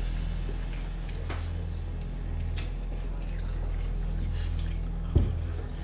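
Soft wet squishes and small clicks of chicken nuggets being dipped into plastic sauce cups and eaten, over a steady low drone, with one sharp thump about five seconds in.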